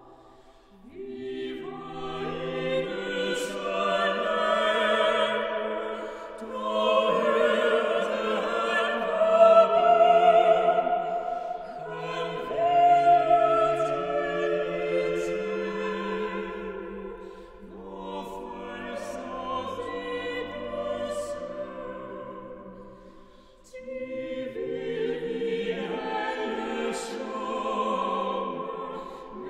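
A small a cappella vocal ensemble of five voices (two sopranos, countertenor, tenor and bass) singing a Danish Christmas hymn in four-part harmony. The singing comes in phrases of about five to six seconds with short breaths between them.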